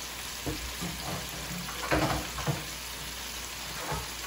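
Shrimp deep-frying in an electric deep fryer: the hot oil sizzles steadily, with a few brief knocks, the loudest about two seconds in.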